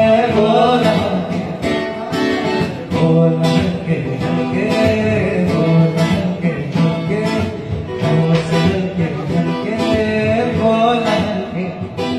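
A man singing a Hindi film song, accompanied by an acoustic guitar.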